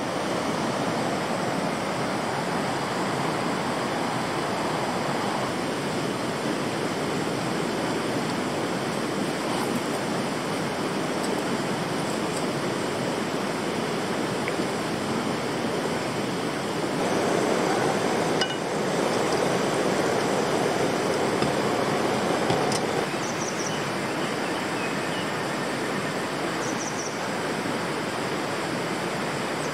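Mountain river rushing steadily over rocks and shallows, swelling somewhat for a few seconds past the middle.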